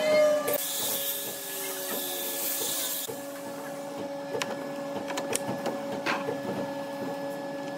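Woodworking shop machinery running with a steady hum, with a high hiss for about two and a half seconds near the start. Scattered light knocks and clicks of cabinet parts being handled sound over it.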